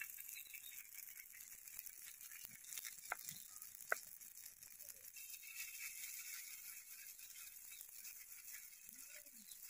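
Noodle-batter fritters sizzling softly in hot oil on an iron tawa. There are two sharp clicks about three and four seconds in.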